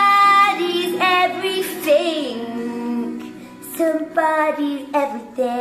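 A woman singing a slow song solo, holding long notes that slide up and down between phrases.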